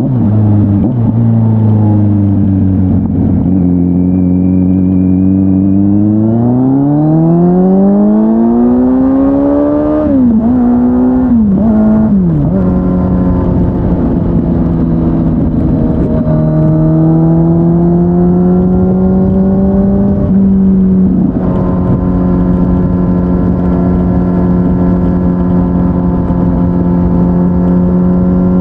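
Kawasaki Z900's inline-four engine through an SC-Project S1 aftermarket exhaust, heard from the rider's seat. It holds steady revs, then climbs in a long rise under acceleration, with two quick upshifts in a row. It then runs at steady cruising revs, with wind noise underneath.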